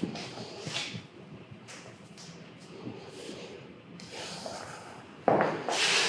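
A person's heavy breathing through the nose, a series of sniffs and breaths, with one loud, sudden breath out about five seconds in.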